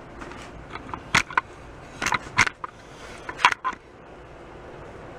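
A few short, sharp knocks and clicks from handling things on a workbench, in three pairs about a second apart, over a steady low hiss.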